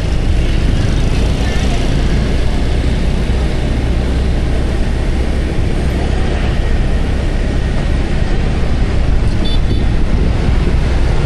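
Steady road and wind noise heard from a moving motorbike in town traffic, heaviest in the low end, with the bike's engine and passing scooters and cars mixed in.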